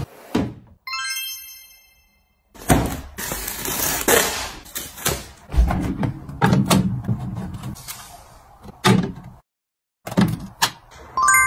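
Plastic organizer bins and food packages being slid and set down on shelves and in a refrigerator: a run of light knocks, thunks and clatter, with a bright ringing chime about a second in and another near the end.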